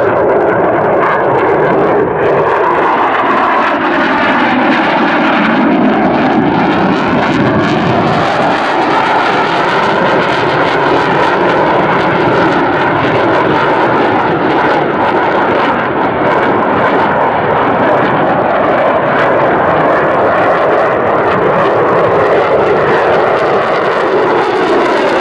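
Eurofighter Typhoon's twin Eurojet EJ200 turbofans at full power with the afterburner lit: loud, continuous jet noise whose pitch sweeps up and down as the fighter moves around the sky.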